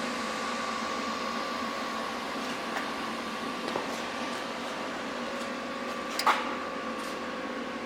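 A steady machine hum with a faint high whine running throughout, with a few light clicks, the clearest about six seconds in.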